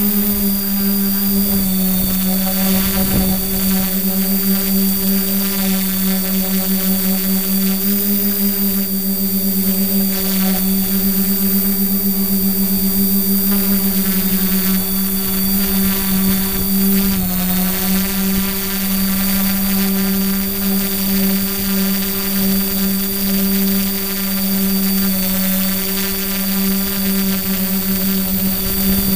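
Quadcopter motors and carbon-fibre propellers running in flight, heard from the onboard camera: a steady hum with a thin high whine above it. The pitch dips briefly a little past halfway.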